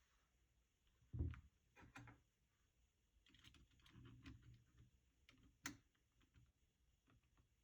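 Sparse clicks and knocks from an AKKO MOD007B mechanical keyboard being pressed and handled. The loudest is a dull thud about a second in, with a soft rustle around four seconds and a sharper click a little later.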